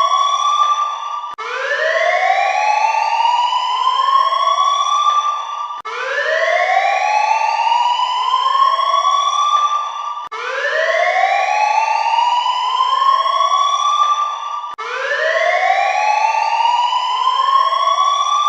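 Alarm siren sounding in rising wails, several overlapping one another like echoes, the whole pattern starting afresh about every four and a half seconds.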